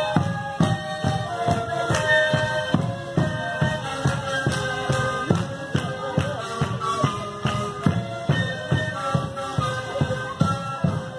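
Live Andean folk music: reedy wind instruments play a melody over a steady beat on a large drum.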